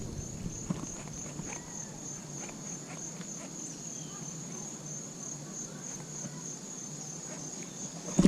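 Insects trilling: a steady, high, rapidly pulsing chorus over a low steady hum, with a sudden loud knock at the very end.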